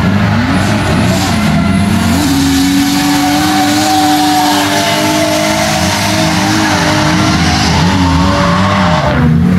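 Toyota 2JZ straight-six in a drifting Cressida, revs swinging up and down in quick pulses, then held high for a few seconds while the car slides, then pulsing up and down again. A steady hiss of spinning, smoking rear tyres runs underneath.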